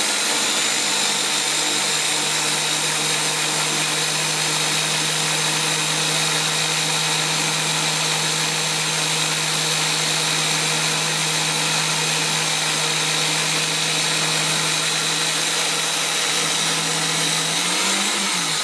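Electric drill mounted in a drill stand running at a steady speed with a constant hum while it bores 3 mm LED holes in a plastic-coated panel. The pitch wobbles briefly near the end.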